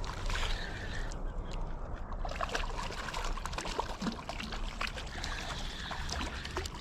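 Creek water trickling and splashing, with scattered small clicks and splashes.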